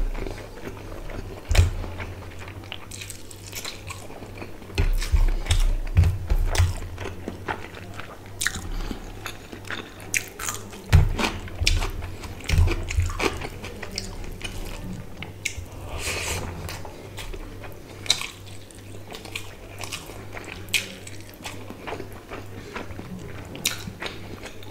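Close-miked chewing and lip-smacking of a mouthful of rice and hilsa fish curry, with irregular wet clicks and squelches. Fingers mixing rice and curry on a steel plate add a few low thumps.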